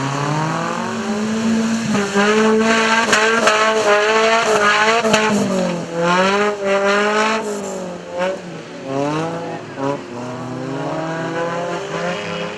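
Off-road race vehicle's engine revving hard, its pitch climbing and dropping several times as the driver works the throttle, with a wavering note and a few sharp knocks in the first half.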